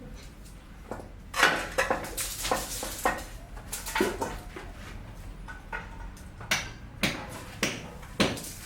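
Irregular knocks and clinks of hard objects being handled, a few per second, with several sharper strikes near the end.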